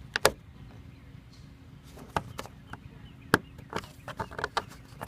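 Screwdriver prying a plastic push-pin retainer clip out of a car's bumper cover: a series of sharp plastic clicks and snaps, the loudest about a quarter second in and again a little past three seconds.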